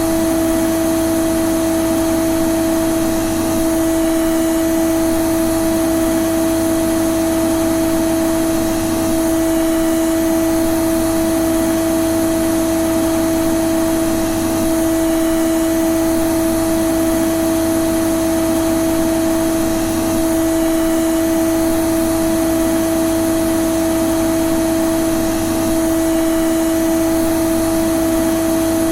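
Vacuum cleaner (hoover) running steadily: a constant pitched motor whine over an even rush of air, with no change in speed.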